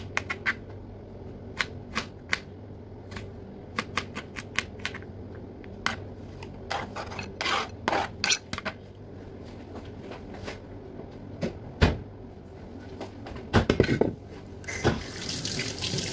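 Kitchen handling sounds: scattered small clicks and taps while garlic cloves are peeled by hand on a worktop, then a few louder knocks as a plastic blender jar and other items are set down. Near the end a steady rush of running water starts.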